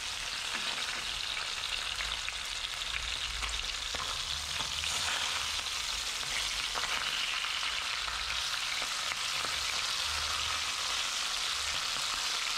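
Two whole fish frying in hot oil in a frying pan, a steady sizzle.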